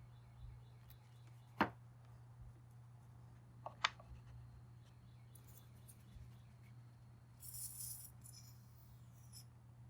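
Pin nailer firing pins into small wooden shims: one sharp shot about a second and a half in, then a quick double shot near four seconds, over a low steady hum. A short high hiss follows near the end.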